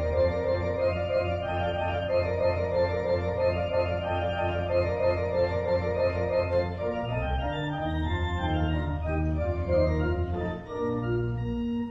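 Organ music: sustained chords with moving upper notes over a deep held bass. The bass breaks off briefly about seven seconds in, and the piece ends on a held chord.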